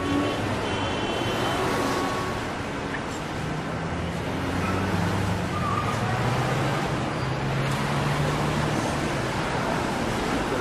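City traffic noise: a steady wash of road noise, with a low engine drone swelling in the middle as a heavy vehicle passes.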